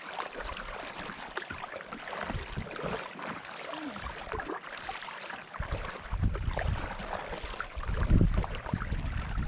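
Kayak paddles dipping and splashing in lake water. From about halfway through, wind rumbles on the microphone.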